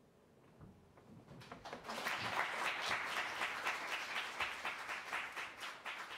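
Audience applauding: clapping begins about a second in and swells to full applause within another second.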